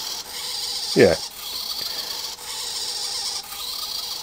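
Rasping, rubbing strokes, about one a second, with a short falling tone about a second in.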